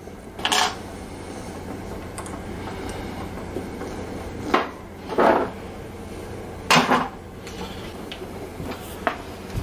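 RCA cable plugs being handled and fitted to the sockets on the back panel of a hi-fi amplifier: about five short clicks and knocks of metal and plastic against the panel, over a steady low hum.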